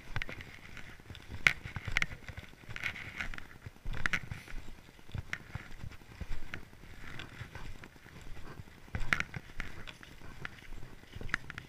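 Footsteps crunching in snow, irregular, about one step a second.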